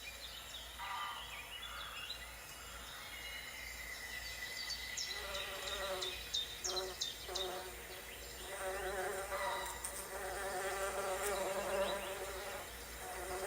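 A flying insect buzzing, its wavering drone starting and stopping several times, with birds chirping in the background.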